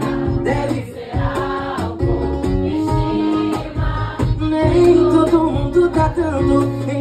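Live sertanejo song: a singer at a microphone, backed by acoustic guitar and accordion, with held accordion chords under the sung line.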